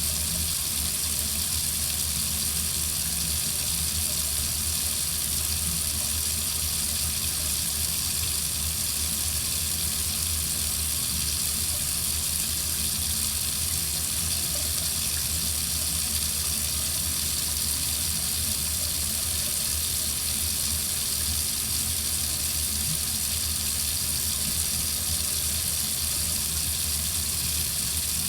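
Water running steadily from a tap into a sink, an even unbroken rush of water.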